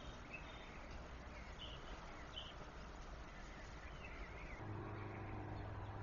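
Faint background ambience with a few scattered small bird chirps. About three-quarters of the way through, a steady low hum sets in.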